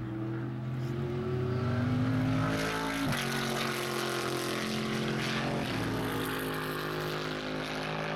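Chevrolet Camaro GT3 race car's V8 engine accelerating hard, its pitch climbing and dropping sharply at two upshifts, about three seconds in and again near six seconds.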